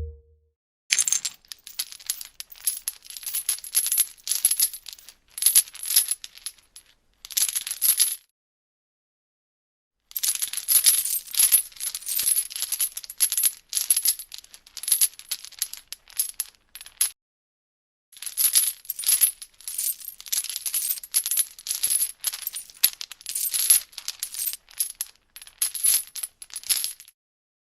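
Metal chain rattling and clinking in quick, irregular runs of metal-on-metal impacts, three runs with a pause of a second or two between each.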